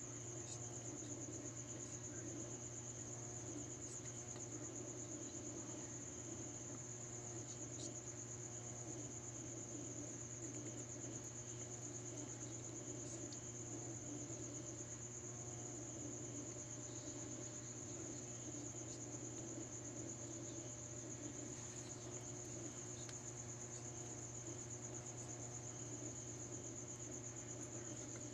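Crickets trilling steadily in a high, continuous chirp, over a low steady hum.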